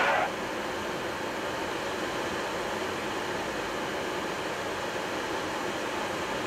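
Steady rushing noise inside a Boeing 737-800 flight deck on short final. A windshield wiper on low speed makes one brief swish right at the start.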